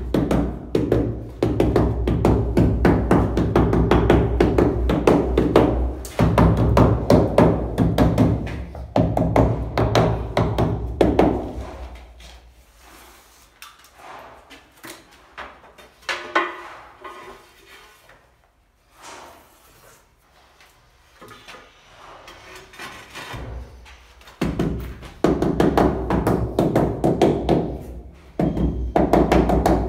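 Rubber mallet rapidly tapping a large stone-look porcelain wall tile pressed into tile adhesive, bedding it in: a quick run of dull knocks. The knocking stops about eleven seconds in, leaving a quieter stretch of scattered handling sounds, and resumes near the end.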